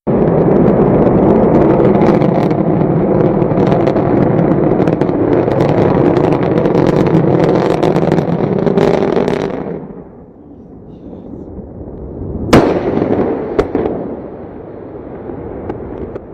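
Loud, dense crackling roar that drops away about ten seconds in, followed by a single sharp bang and some fainter crackling.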